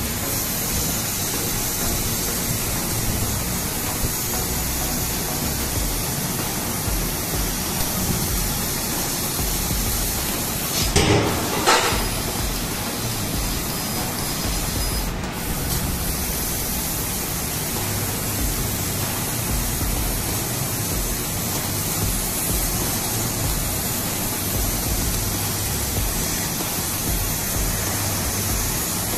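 Senfeng fiber laser cutting head cutting thick steel plate at 1.5 kW: a steady, loud rushing hiss of the assist-gas jet and spraying molten sparks, with a brief louder burst about eleven seconds in.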